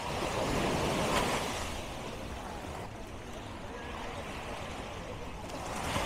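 Sea waves breaking and washing up the beach: a swell of surf noise about a second in that ebbs away, and another rising near the end.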